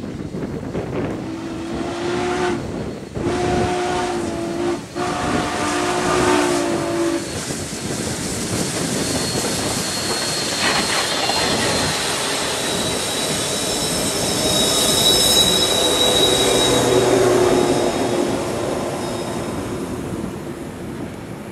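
Union Pacific 844's steam whistle sounds a chord in three blasts as the 4-8-4 drifts toward the camera downgrade. Then the locomotive, a trailing diesel in dynamic braking and a long passenger train roll past with steady wheel and rail noise and a high wheel squeal.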